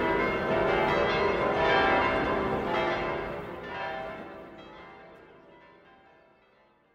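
A peal of bells ringing, many overlapping struck tones, fading out steadily over the last few seconds.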